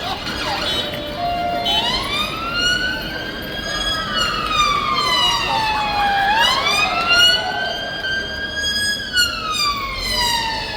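Emergency vehicle siren sounding a slow wail, starting about two seconds in, its pitch rising and falling in long sweeps of several seconds each, over the hum of city street noise.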